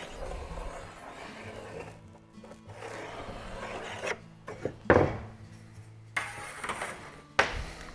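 Pencil scratching along a steel rule across thin plywood as a line is marked, in several strokes. About halfway through come a few sharp knocks, the loudest of them first, as the steel rule is lifted off and handled.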